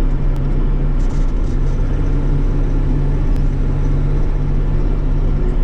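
Bobcat E42 mini excavator's diesel engine running steadily under hydraulic load, heard from the operator's cab, as the arm pulls a tree stump out of the ground.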